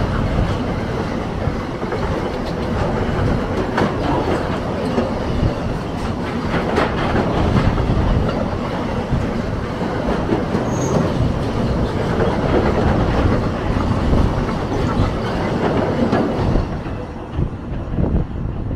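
Freight train of double-deck car-carrier wagons rolling past: a steady rumble of wheels on rail with scattered knocks. The noise thins out near the end as the last wagon goes by.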